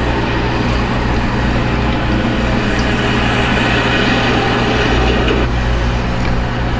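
The International WorkStar 7600 truck's diesel engine running steadily, a low hum with a hiss over it that eases a little about five and a half seconds in.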